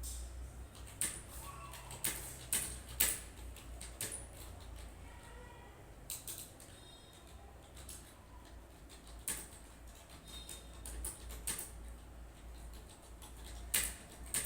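Computer keyboard keys clicking irregularly in short clusters, over a steady low hum.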